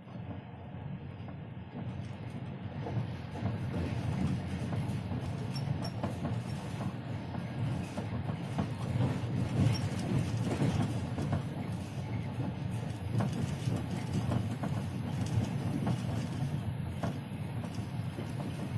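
Passenger train running on the rails, heard from inside the carriage: a steady low rumble with scattered clicks and knocks from the wheels on the track.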